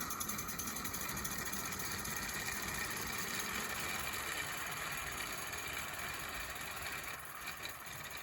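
Accucraft Cranmore Peckett 16mm-scale live steam model locomotive running, its exhaust giving a fast, even chuff with steady steam hiss.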